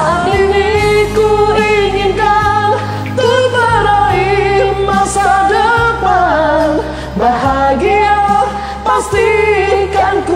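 A man and a woman singing a duet in Indonesian over a karaoke backing track with steady bass notes.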